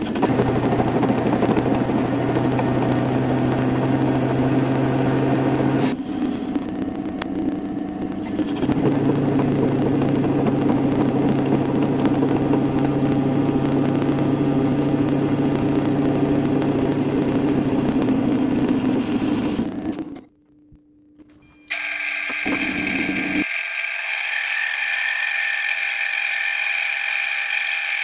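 Metal lathe running and turning a steel workpiece, a steady machine hum with a low drone. The sound changes abruptly a few times, drops away briefly about twenty seconds in, then comes back as a higher steady whine.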